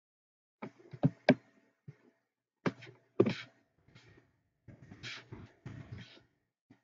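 Knocks and thumps mixed with rustling and handling noise in a small room, heard through a video call.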